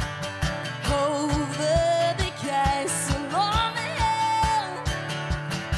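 Live acoustic music: an acoustic guitar strummed over a steady cajón beat. From about a second in to near five seconds, a woman sings a sliding, held melody over it.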